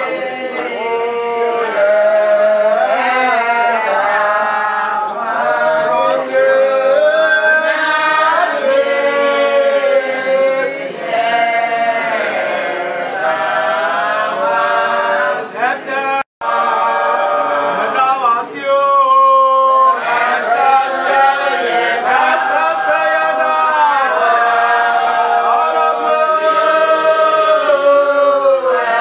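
A group of voices singing together unaccompanied, with long held notes; the sound breaks off for an instant about sixteen seconds in.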